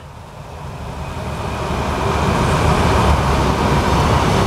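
Freight train of tank cars rolling past, a steady rumble of the wagons that builds over the first two or three seconds and then holds.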